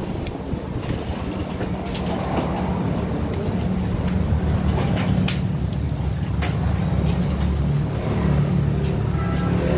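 Steady low engine rumble of motor vehicles, getting louder about two seconds in, with a few sharp clicks over it.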